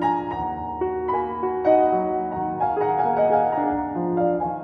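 Background piano music: a slow melody of single held notes changing about every half second.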